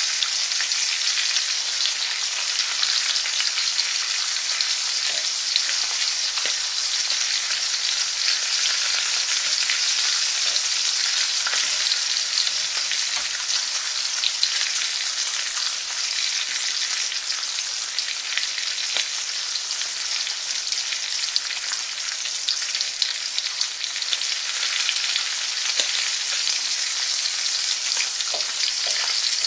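Food frying in a hot pan: a steady sizzle with many fine crackles and pops throughout.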